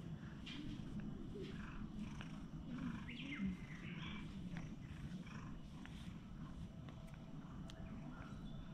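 Orange-and-white cat purring steadily while its head is stroked, a low continuous rumble of a relaxed, contented cat.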